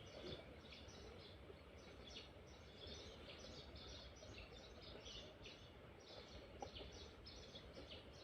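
Faint chorus of small birds chirping: many short high calls, irregular and overlapping, over a low, even background noise.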